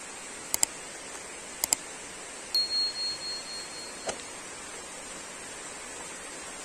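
Sound effects of an on-screen subscribe-button animation: two quick double clicks about a second apart, then a bell ding that rings on in fading pulses for about a second and a half, over a steady hiss of rain.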